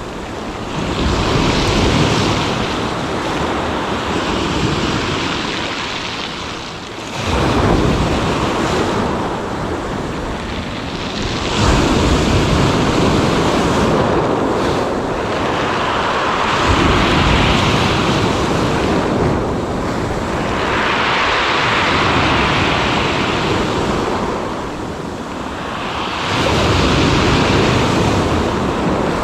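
Sea waves breaking and washing on the shore, swelling and falling away every few seconds, with wind on the microphone.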